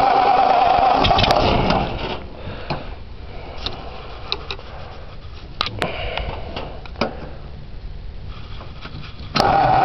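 1937 flathead engine being cranked over: a steady mechanical run that stops about two seconds in, a few light clicks and knocks, then the cranking cuts back in abruptly near the end as another start attempt on an engine just brought back after years of sitting.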